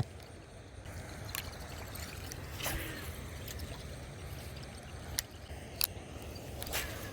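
Spillway water running steadily, with a few short sharp clicks scattered through it.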